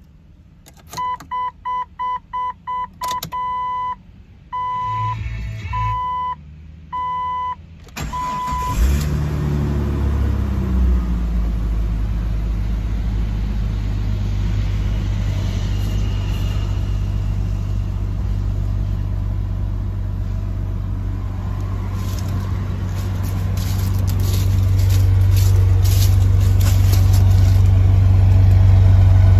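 Jeep Cherokee XJ on a cold start. A dashboard warning chime beeps repeatedly, then about eight seconds in the engine cranks briefly and catches. The revs flare up and fall back over a couple of seconds, and it settles into a steady fast idle. The idle grows louder near the end, heard close to the tailpipe.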